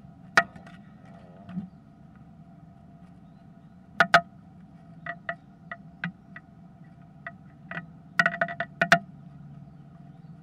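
Sharp taps and knocks of a great tit moving about inside a wooden nest box, scrabbling and knocking on the wood: a single tap, a double knock about four seconds in, scattered lighter ticks, then a quick flurry near the end. A faint steady hum runs underneath.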